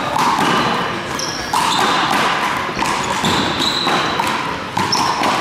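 A one-wall handball rally: the small rubber ball slapped by bare or gloved hands, smacking the front wall and bouncing on the floor, echoing in a large sports hall. Trainers give a few short high squeaks on the hall floor between the hits.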